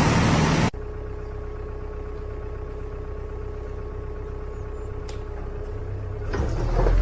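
Loud rushing noise that cuts off abruptly under a second in, followed by an engine running steadily with a low rumble and a constant hum, with a single click around five seconds and a louder rise near the end.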